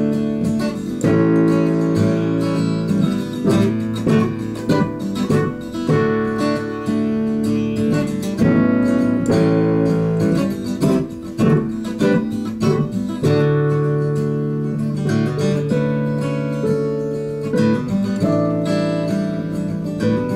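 Acoustic guitar strummed together with chords played on an electronic keyboard, an instrumental passage with no singing.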